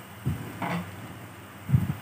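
Blended onion and ginger paste frying gently in oil in an aluminium wok, a faint steady bubbling, with two dull low knocks, one just after the start and one near the end.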